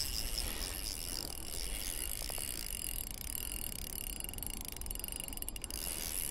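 Shimano Vanford spinning reel's drag slipping steadily, giving line to a large bass that is pulling hard.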